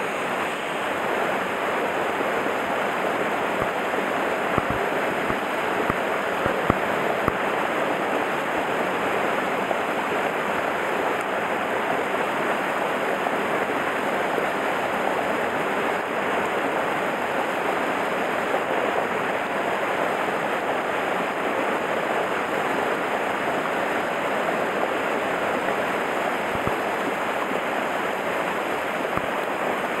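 Mountain stream rushing steadily over a small rocky cascade into a pool.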